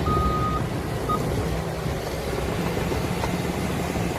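Toy bulldozer's engine-like rumble, steady throughout, with a reversing beeper: one half-second beep at the start and a short blip about a second in.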